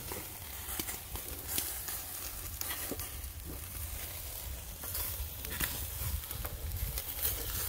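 Shashlik skewers of chicken breast wrapped in marbled beef sizzling over hot charcoal, with irregular crackles and pops as the melting beef fat drips onto the coals.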